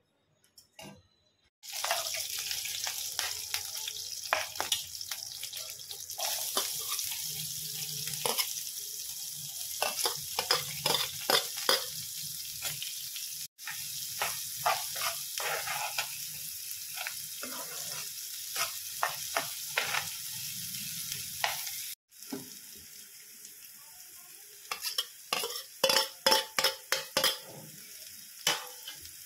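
Hot oil sizzling in a pan as mustard and cumin seeds, then chopped onions and green chillies, fry, with a steel spoon clicking and scraping against the pan as it stirs. The sizzle starts suddenly about two seconds in, breaks off briefly twice, and is softer in the last part, where a run of quick scrapes stands out.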